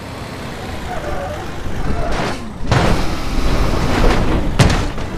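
A rumbling vehicle noise with no clear pitch, growing louder about two seconds in, with a sharp click about four and a half seconds in.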